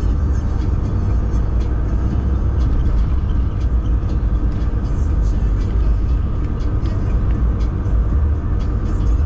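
Inside a semi-truck's cab at highway speed: steady low rumble of the truck's diesel engine and road noise.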